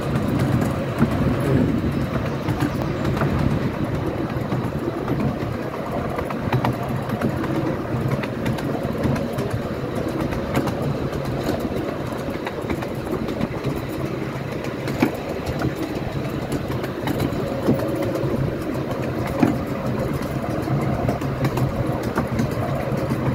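Miniature railway train running along the track, heard from on board: a steady rumble of wheels on rail with frequent small clicks and knocks.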